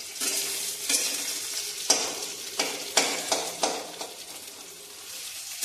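Sliced onion, green chilli and garlic sizzling in oil in a kadhai, oil the cook thinks has got very hot, while a metal spatula stirs them, scraping and knocking against the pan several times about two to three and a half seconds in.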